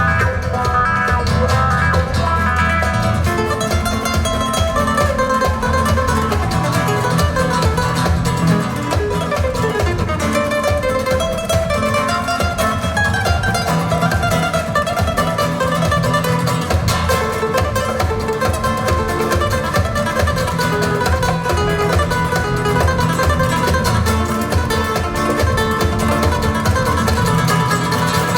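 Guitar music with a steady bass line, played back from CD on a hi-fi system's loudspeakers.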